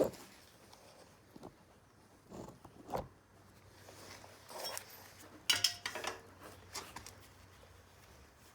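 Steel wrenches clinking and knocking against the rear axle nut of a motorcycle as the nut is loosened for a chain adjustment. The light clinks and taps are scattered and come at irregular times, with a few louder knocks a little past the middle.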